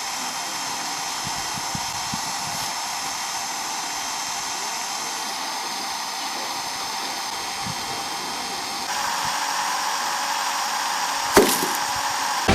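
Electric drill motor running steadily with a high whine, getting louder about nine seconds in, with one sharp knock near the end.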